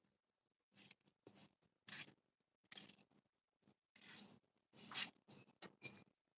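Faint, irregular scuffs and rustles: a string of short noises with brief pauses between them, a little louder in the last two seconds.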